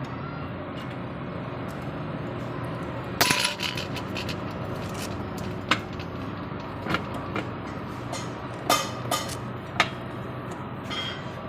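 Steel tools and parts clinking and knocking as a pickup's wheel hub is taken apart, with a sharp ringing clink about three seconds in and a few lighter knocks after it, over a steady low hum.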